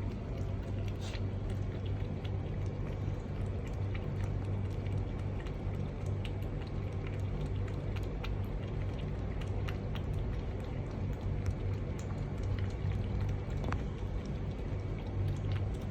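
Steady low background rumble with a constant hum and scattered faint ticks.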